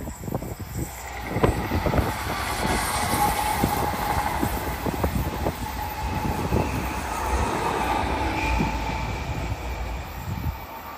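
High-speed passenger train passing: a rushing noise that builds about a second in, holds steady for several seconds, then fades near the end, with many sharp clicks through it.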